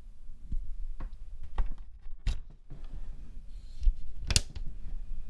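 Low steady hum of a desktop PC's case and CPU cooler fans running at low speed, broken by several sharp clicks, the loudest about four seconds in.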